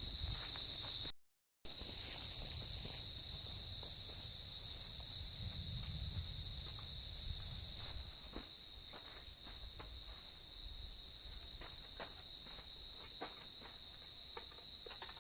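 Night chorus of crickets and other insects, a steady high-pitched trill, with scattered faint clicks. A low rumble underneath dies away about eight seconds in, and the sound cuts out briefly about a second in.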